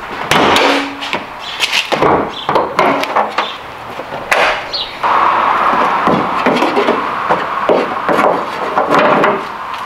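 Clicks, knocks and clunks of a car's hood and its metal prop rod being handled, with a steadier noise running through the second half amid further knocks.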